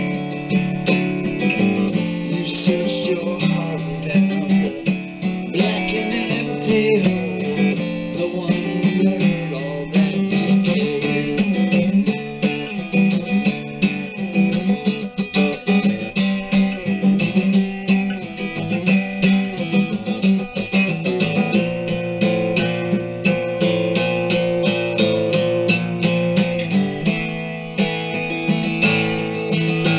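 Guitar-led song in an instrumental passage with no words, made up of a steady run of quickly picked and strummed notes.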